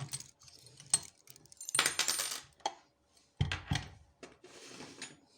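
Small metal lock parts and tools clinking and rattling as a picked rim cylinder is handled, with sharp clicks, a bright jingling rattle about two seconds in and two heavier knocks a little later.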